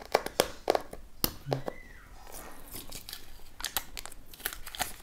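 Fingers and fingernails picking and peeling at the seal on a cardboard smartphone box, making irregular crinkling and sharp crackles.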